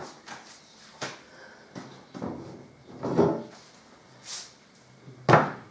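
Household knocks and bumps, roughly one a second, as things are handled around a pantry cupboard; the loudest is a sharp knock near the end.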